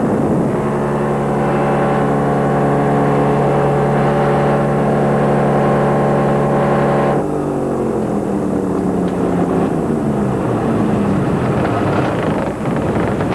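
Buccaneer II amphibian's engine and propeller running at a steady pitch, heard from the cockpit. About seven seconds in the engine suddenly cuts out and its pitch slides down as the propeller winds down, leaving only wind rush: the engine has quit, which the pilot puts down to running out of gas.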